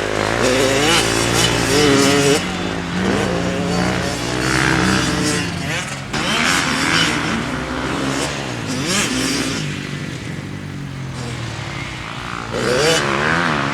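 Kawasaki KX100 two-stroke dirt bike engine revving, its pitch rising and falling again and again, loudest in the first couple of seconds and again near the end.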